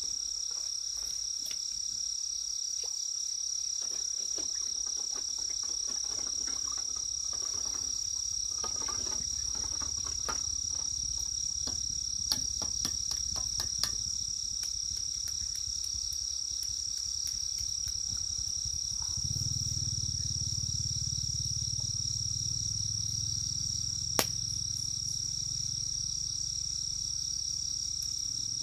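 Steady high-pitched chorus of insects such as crickets, running throughout. Scattered light clicks and taps come in the middle, and a low rumble begins about two-thirds of the way through.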